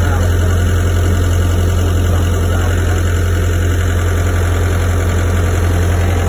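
Komatsu PC120-6 excavator's diesel engine running steadily, heard in the open engine bay beside the hydraulic control valve, with a strong, even low hum.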